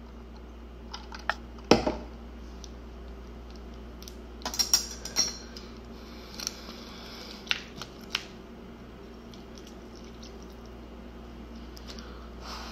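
Light clicks and knocks of a drinking glass, a plastic bowl and a spoon being handled and set down, the loudest knock about two seconds in and a quick run of clicks around five seconds, over a faint steady low hum.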